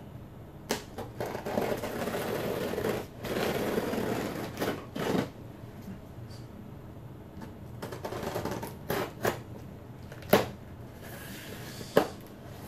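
Scissors slitting the packing tape along the seam of a cardboard box, in scratchy scraping stretches, with several sharp clicks and taps on the cardboard.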